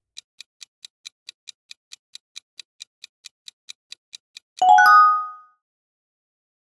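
A countdown timer sound effect: rapid clock ticks, about four or five a second, that stop after about four and a half seconds. A bright bell chime follows, signalling that the correct answer has been revealed.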